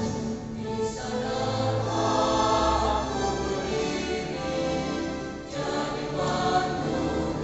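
Choir singing in harmony, voices holding sustained chords, with a brief break in the phrase about five and a half seconds in before the singing resumes.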